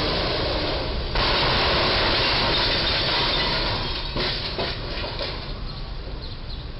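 A box truck's roof slamming into a low railroad bridge and being torn open: loud crunching and scraping of metal that starts sharply about a second in. Several clattering knocks follow as the noise dies down.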